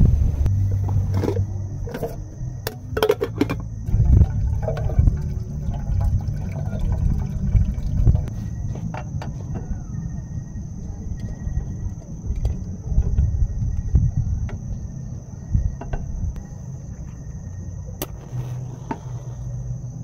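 Clicks and knocks of camp cookware and a gas canister being fitted to a remote-canister backpacking stove, busiest in the first few seconds, with a single sharp click near the end as the stove is lit. A steady low rumble runs underneath, and a faint steady high whine throughout.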